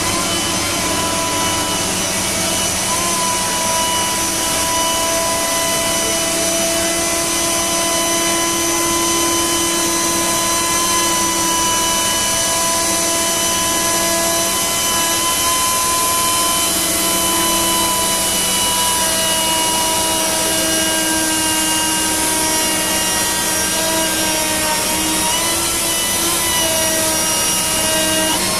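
High-speed router spindle on a Panasonic six-axis robot, trimming moulded plastic. It runs steadily as a constant rushing noise with several held whining tones that dip and shift a little now and then as the cut goes on.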